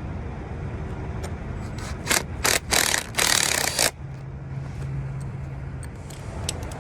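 Tool work on metal at a truck's starter: several short, harsh, noisy bursts, the last about a second long, over a steady low rumble, with a few light clicks near the end.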